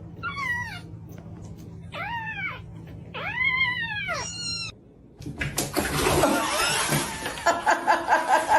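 A cat meowing four times, each meow rising then falling in pitch, over a steady low hum. About five seconds in the meows stop, and a louder noisy stretch with rapid pulsing follows.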